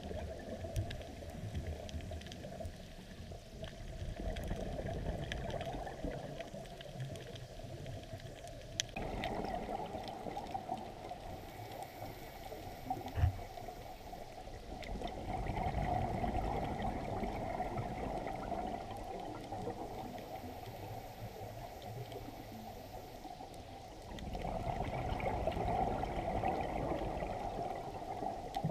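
Muffled underwater rushing and bubbling of scuba divers' exhaled air, heard through a camera housing, swelling louder and fading in long stretches, with a few faint clicks.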